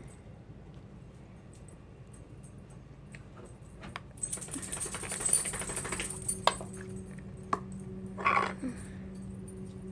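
Plastic slime container being opened and handled: a crackling rustle for about two seconds, a few sharp clicks, then a short squeak.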